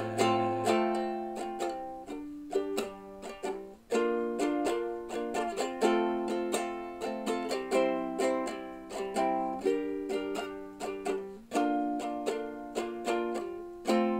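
Luna ukulele strumming a run of chords with no singing, each strum ringing and decaying before the next. This is the instrumental close of the song.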